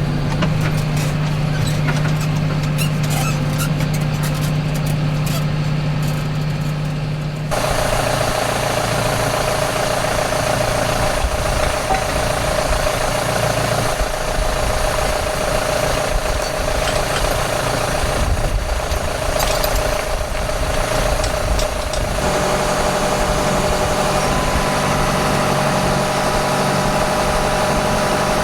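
Farm tractor engine running steadily under way, towing a bale feeder; its hum shifts abruptly twice.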